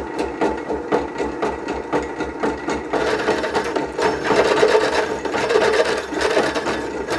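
Drill press boring through thick steel plate: the motor running with a fast, even chatter of the twist bit cutting, louder about three seconds in.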